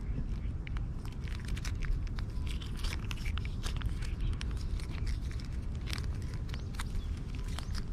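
Cats chewing and crunching their food, with many small irregular crackles and clicks. A steady low rumble runs underneath.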